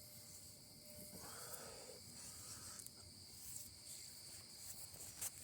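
Crickets chirping faintly and steadily at a high pitch, with a little soft rustling of handling from about a second in.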